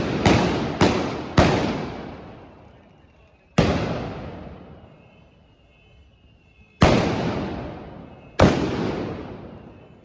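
Trabucs (Catalan blunderbusses) firing blank gunpowder charges, six loud blasts in all: three in quick succession near the start, one a couple of seconds later, and two more near the end, each echoing away over a second or two.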